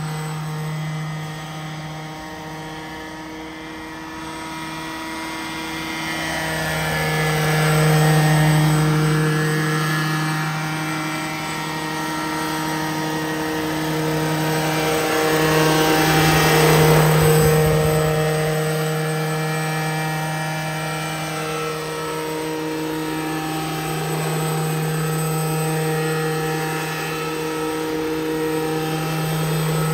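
Petrol-engined Vario Bell 212 radio-controlled scale helicopter in flight, its engine and rotors running at a steady pitch. The sound swells louder twice as it passes close, about a quarter of the way in and again about halfway through.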